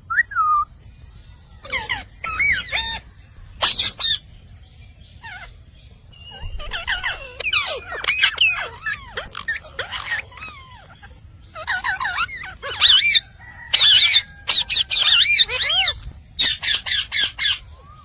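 Indian ringneck parrot calling: shrill, harsh screeches and chirps in bursts with short pauses between them, ending in a quick run of about five short calls.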